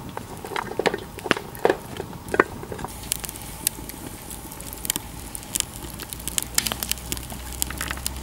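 Chunks of vegetable knocking as they are dropped into a cauldron. From about three seconds in, a wood fire crackles in a metal stove's open firebox, with frequent sharp pops over a low rumble.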